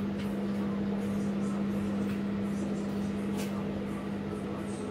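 A steady low machine hum over a faint hiss, with a faint click about three seconds in.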